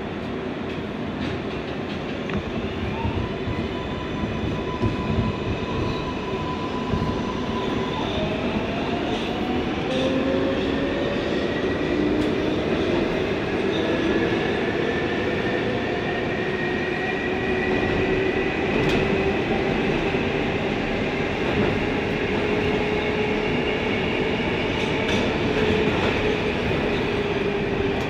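Kawasaki R142A subway car running through a tunnel, heard from inside the car: a steady rumble of wheels on rails with several whining tones that hold or shift slowly in pitch.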